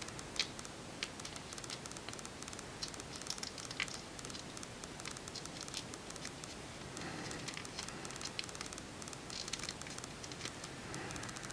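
Origami paper crinkling and rustling as the fingers fold and press it, with many small sharp crackles scattered throughout.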